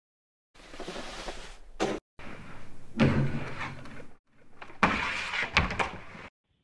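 Skis scraping and hissing over snow, with several sharp thuds of skis striking hard edges and landing from jumps.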